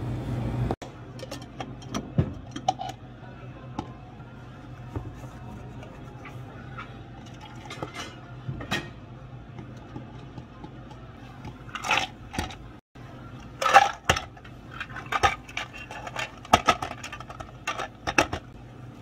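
Clear plastic cups set down on a stone counter and ice cubes scooped into them: a run of light clinks and clatters, sparse at first and busiest in the second half.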